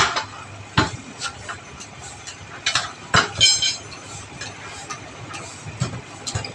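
Steel tyre levers clanking against a steel wheel rim while a truck tyre's bead is pried off the rim for a puncture repair. A few sharp metallic knocks; the loudest comes about three seconds in and rings briefly.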